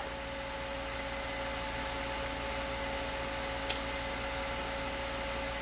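Steady background hum and hiss with a few faint held whining tones, and one light click a little after halfway as the plastic bulb base is handled.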